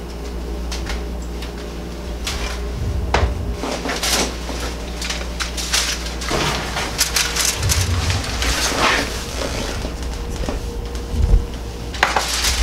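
Aluminium foil being folded and crimped by hand, with irregular crinkling and rustling, over a steady low hum.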